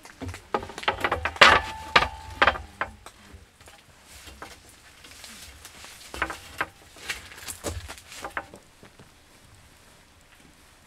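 Wooden shelf boards knocking and clattering as they are set onto iron ladder-style shelf legs, in two bursts of knocks; the loudest knock, about a second and a half in, rings briefly.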